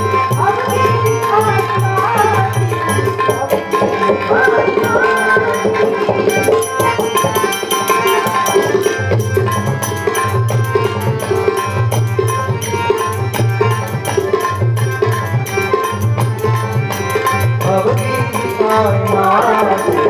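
Varkari bhajan music: a hand drum keeps a steady rhythm under held instrument tones and a fast high ticking of percussion. Singing comes in briefly near the start and again near the end.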